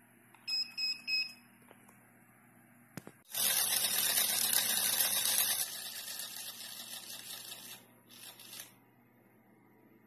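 Three short, high electronic beeps in quick succession, then a click and a loud hiss that slowly fades, with two brief hisses after it.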